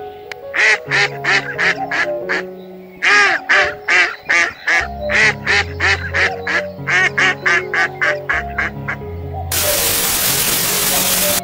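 Duck quacking in a quick series of short calls over background music, cut off near the end by about two seconds of loud hiss like static.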